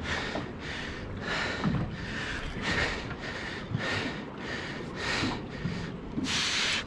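Heavy, rapid breathing of a person straining hard while fighting a large kingfish on rod and reel, about two breaths a second.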